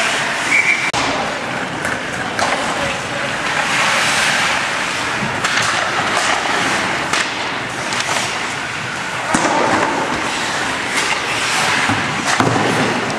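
Ice hockey play: skate blades scraping and carving on the ice, with sharp knocks from sticks and the puck striking sticks and boards every second or two.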